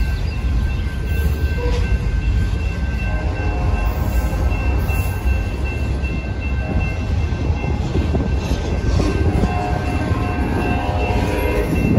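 Freight train cars, refrigerated boxcars and an autorack, rolling past on the rails with a steady low rumble of wheels on track. Faint steady high-pitched tones run through it.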